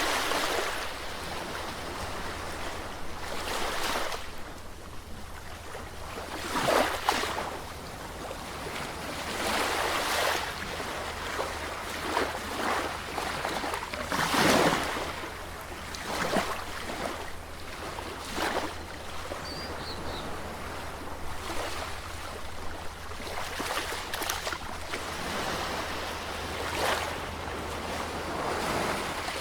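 Sea waves breaking and washing on the shore, one swell of surf every few seconds over a steady hiss of water, with the biggest breakers about seven and fourteen seconds in.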